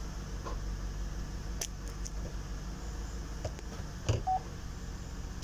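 2012 Chevrolet Tahoe engine idling on a test run after the rear main seal and 6L80 transmission seals were replaced, a low steady hum. About four seconds in there is a knock, then a single short beep from the dashboard warning chime.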